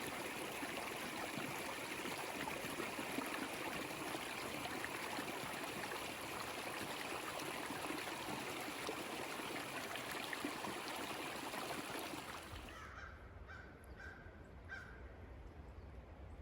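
Steady rushing of a flowing stream. About twelve and a half seconds in it cuts away to a much quieter background with a few brief chirps.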